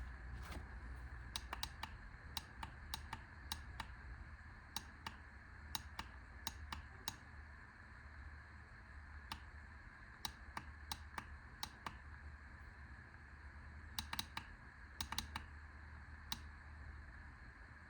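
Small sharp plastic clicks at irregular intervals, often in quick runs of two or three: a rechargeable lantern's push button being pressed over and over to cycle through its light modes.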